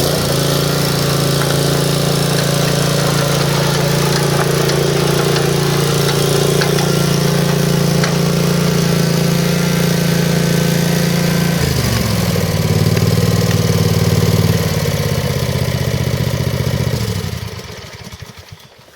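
Kawasaki FH541V 17 hp V-twin engine of an Exmark Turf Tracer stand-on mower running steadily at speed. About twelve seconds in it is throttled down and drops in pitch, and near the end it is shut off and dies away.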